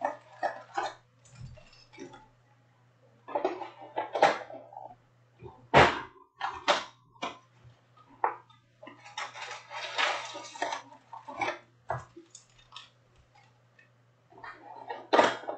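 Cardboard hobby box and foil-wrapped Panini Prizm trading card packs being handled: uneven rustling, crinkling and sharp knocks as the box is opened and the packs are pulled out. A steady low hum sits underneath.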